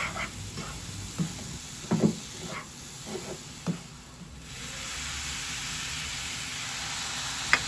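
Wooden spatula scraping and stirring a dry semolina laddo mixture in a nonstick pan, a few short scrapes and knocks. About halfway through, milk is poured into the hot mixture and a steady sizzle follows: the mixture being moistened to a consistency that can be shaped into laddoos.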